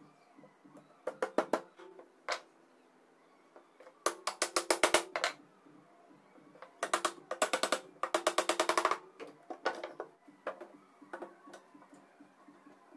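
Several bursts of rapid, sharp knocks, some runs at about ten a second, over faint background music.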